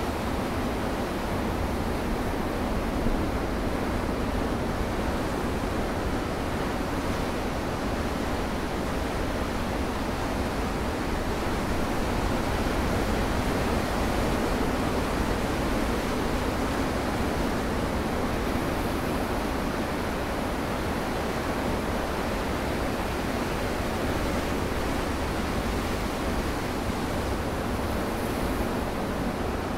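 Ocean surf breaking and washing over a rocky shoreline: a steady rush of noise that swells a little in the middle.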